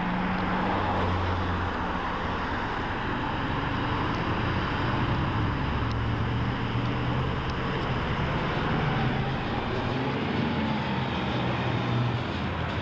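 A large engine running steadily, its low hum shifting a little in pitch.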